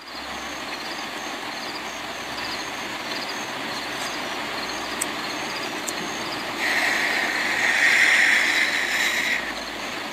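Night-time ambience: a steady hiss with faint high insect chirps repeating about twice a second. About six and a half seconds in, a louder hissing noise comes in and cuts off abruptly about three seconds later.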